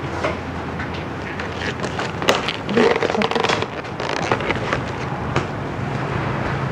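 Clear plastic clamshell food boxes being closed and wrapped by gloved hands: a run of crinkling, crackling and clicking, busiest about two to three and a half seconds in.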